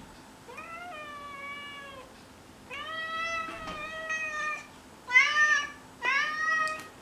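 A domestic cat meowing four times: two long, drawn-out meows, then two shorter, louder ones in quick succession near the end.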